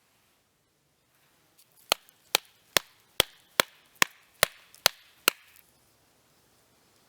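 Nine sharp chopping blows in a steady rhythm, a little over two a second, starting about two seconds in.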